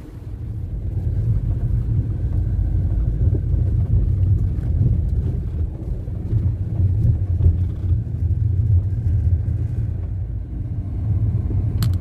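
Low steady rumble of a vehicle travelling along a dirt road, mixed with wind buffeting the microphone.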